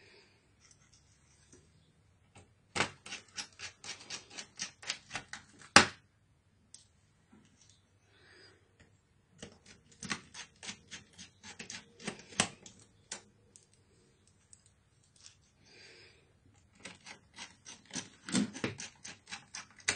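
Screwdriver turning screws in a laptop's plastic base, clicking rapidly in three bursts of a few seconds each, about five clicks a second; the first burst ends with a louder click.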